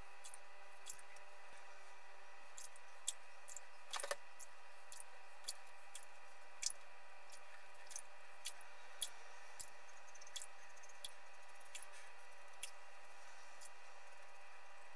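Double-edge safety razor (Merkur 34C with an Astra blade) scraping through a week's stubble on lathered skin: a string of short, crisp strokes, about one or two a second, the firmest about four seconds in.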